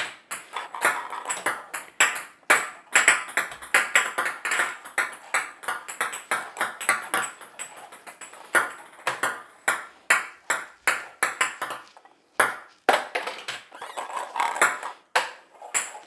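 Small plastic game balls of a 4 Gewinnt Action (Connect Four bounce) game bouncing on a hard tabletop and clattering into the plastic grid. The balls make many quick, sharp pinging taps in runs of bounces, with a short pause about twelve seconds in.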